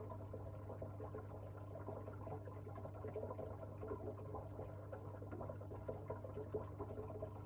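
Faint, steady trickle of water in the aquarium over a constant low hum.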